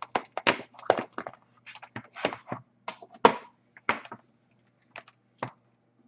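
Charger cable and plugs being handled against a laptop's plastic case: a string of irregular clicks and knocks that thin out to a few single taps near the end.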